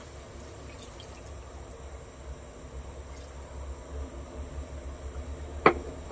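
A little water poured from a mug into a hot pan of beef in sauce, the liquid bubbling and simmering. Two sharp clicks come close together near the end.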